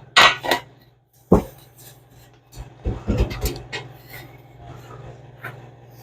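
Short scraping and rubbing strokes against a hard surface, with a few sharp knocks in the first second and a half and a quick run of strokes about three seconds in, over a low steady hum.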